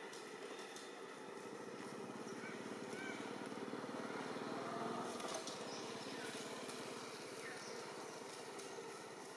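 Outdoor background noise with a passing engine that swells to its loudest about five seconds in and then fades, plus a few short high chirps near the start.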